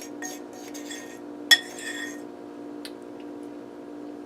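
A metal utensil scraping and clinking against dishes, with one sharp clink about a second and a half in. A steady low hum runs underneath.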